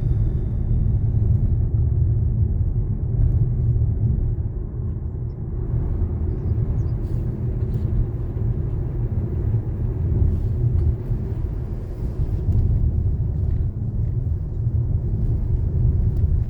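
Steady low rumble of a car in motion, road and engine noise heard from inside, with a faint constant hum.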